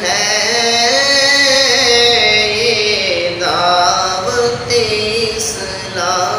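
A young man singing an Islamic devotional song (a naat) solo, in long held notes that waver in pitch, with short pauses about three seconds in and near the end.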